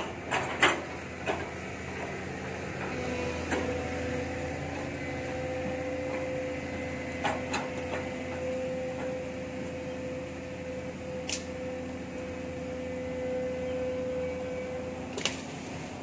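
Long-reach excavator running, with a steady whine held from a few seconds in until near the end as the arm swings away. A few sharp clicks and clanks are heard around the start and at scattered moments later.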